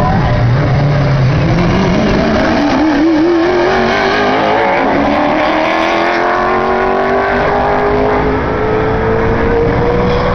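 NASCAR Cup race car's V8 engine accelerating away. Its pitch wavers briefly, then climbs steadily for several seconds as the car pulls onto the track.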